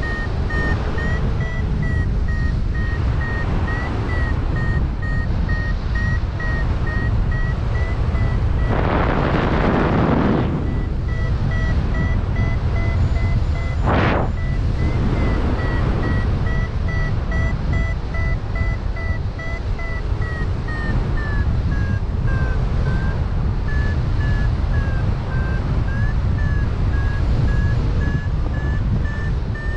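Wind rushing hard over the microphone in flight, with a paragliding variometer beeping steadily at a high pitch, the sign of the glider climbing in lift; the beep's pitch sags slightly in the last third. Two louder surges of rushing air come through, a broader one about a third of the way in and a short sharp one near the middle.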